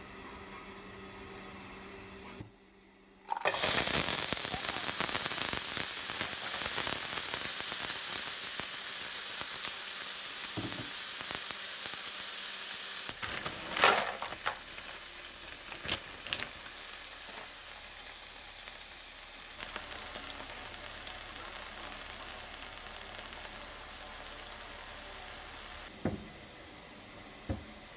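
Chopped vegetables sizzling in hot oil in a frying pan. The sizzle starts suddenly about three seconds in and slowly eases. Halfway through there is a sharp knock and rustle as diced peppers are tipped into the pan from a plastic bag, and a few lighter knocks come near the end.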